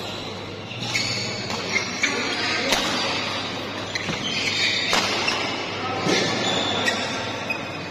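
Badminton rackets striking a shuttlecock in a doubles rally: a string of sharp hits at uneven intervals, over the steady chatter and calls of spectators in a large hall.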